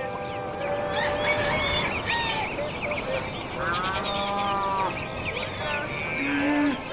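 Farmyard ambience: small birds chirp throughout while livestock call over them, with a long wavering call about three and a half seconds in and a short, low, steady call near the end.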